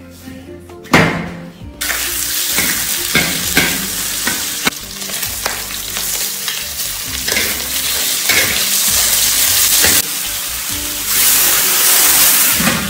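Meat and garlic sizzling as they are stir-fried in a large iron wok over a wood fire, with repeated spatula scrapes and clanks against the wok, after a single sharp clank about a second in. Near the end the hiss grows louder as cooking wine is poured into the hot wok and turns to steam.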